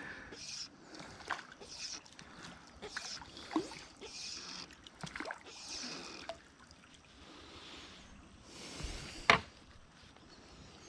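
Water sloshing and small splashes close to the microphone, with handling knocks and clicks as a small fish is brought in. A sharp knock about nine seconds in is the loudest sound.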